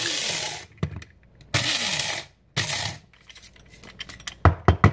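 Small electric coffee grinder grinding whole coffee beans in short pulses for a coarse grind: three bursts of motor whirring, the first ending soon after the start. Near the end come a series of sharp clicks and knocks, the loudest sounds, as the grinder is tipped over and its grounds knocked out.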